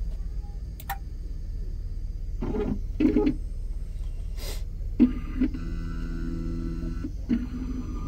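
Computerized key-cutting machine cutting a 2008 Toyota Camry key blank by code: a steady motor hum, with short mechanical whirring runs as the carriage moves and a steady pitched whine for about a second and a half past the middle.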